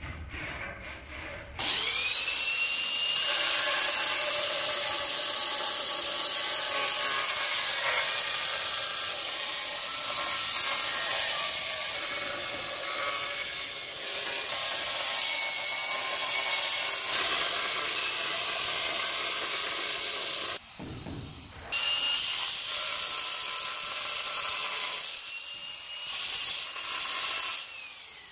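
Hand-held angle grinder with a diamond disc cutting a ceramic tile. The motor whines up to speed about two seconds in and cuts steadily, stops briefly about two-thirds of the way through, then spins up again for shorter cuts near the end.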